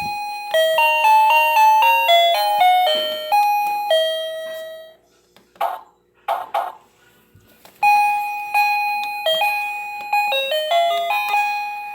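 Plug-in wireless doorbell receiver playing its selectable electronic chime tunes: one melody of clean beeping notes, a pause of a few seconds, then a different melody starts.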